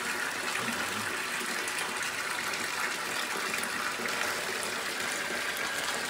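Water running steadily from a bathtub spout into the tub, turned to hot for a temperature test of the newly set shower valve.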